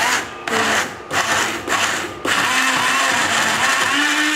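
Small personal cup blender with a glass jar chopping food: four short pulses of the motor, then a continuous run of about two seconds with its pitch wavering as the contents shift.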